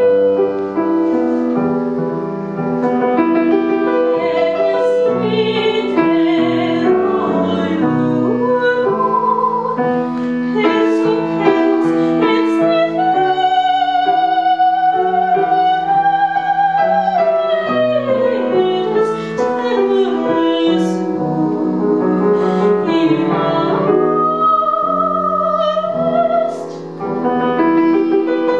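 A woman singing an operatic aria with vibrato, accompanied by an upright piano. She holds long notes about halfway through and again near the end.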